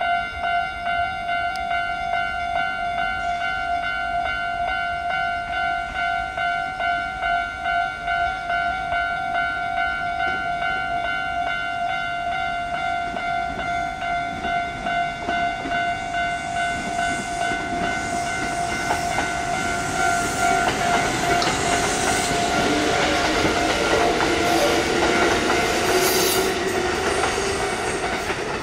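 Level-crossing warning bell ringing in an even, repeating electronic clang. From about halfway, a Kintetsu train comes in, its running noise growing steadily louder and drowning out the bell toward the end.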